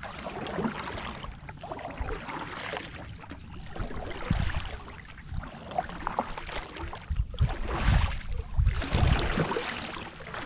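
Kayak paddle strokes in calm river water: the blade dipping, splashing and dripping, swelling and fading every second or two. Low rumble from wind on the microphone is strongest in the last few seconds.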